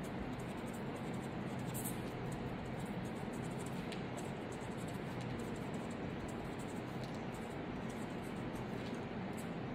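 Felt-tip marker pen scratching across a paper notepad as a line of words is written, over steady room noise.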